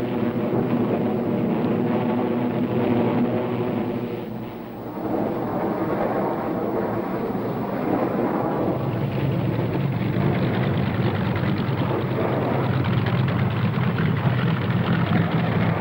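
Propeller aircraft engines droning steadily. The level dips briefly about four to five seconds in, and from about nine seconds a heavier, deeper engine drone takes over.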